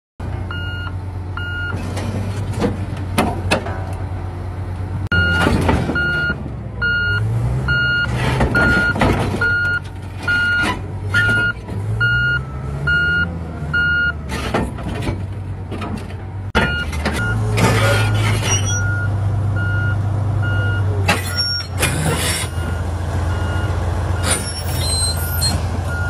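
Komatsu D475A bulldozer's V12 diesel engine running and revving as the machine tracks up onto a lowboy trailer, with its travel alarm beeping about one and a half times a second. Heavy clanks from the steel tracks on the trailer deck break in several times.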